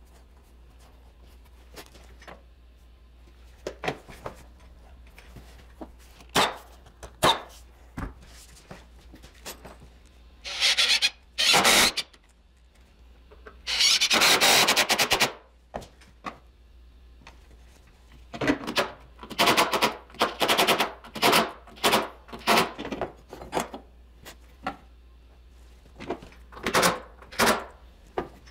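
Carpentry work on a wooden newel post: scattered knocks and clicks, with a few rasping bursts of about a second around the middle and then runs of short quick bursts.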